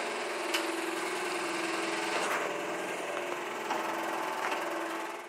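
A steady mechanical whir with a low humming tone and a faint rapid rattle, with a few small clicks over it; it cuts off suddenly at the end.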